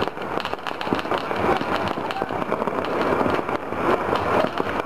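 Many distant firecrackers and fireworks going off across a city at once: a dense, unbroken barrage of small pops and bangs.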